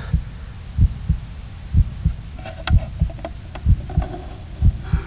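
Low, heartbeat-like double thumps, about one beat a second, with a few faint clicks about halfway through.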